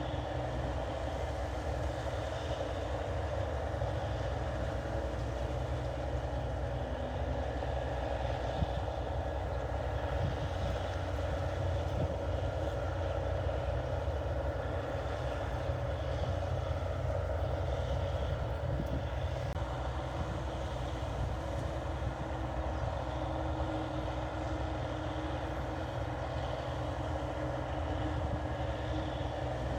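New Holland 8080 combine harvester running steadily while cutting rice, a constant low engine drone with the even hum of its working machinery, unchanged throughout.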